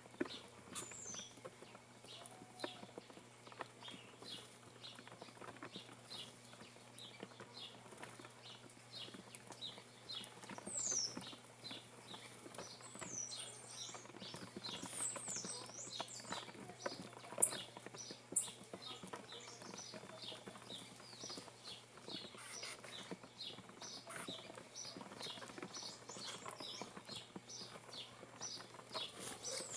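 Many small birds chirping and calling in short, quick notes, some sliding down in pitch, busiest from about ten seconds in, with light tapping and pattering throughout.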